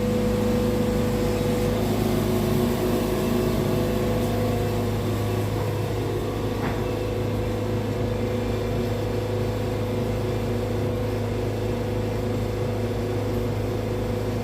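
Wood-Mizer band sawmill's engine running steadily as the mill makes a cut through a walnut log, with a single knock about seven seconds in.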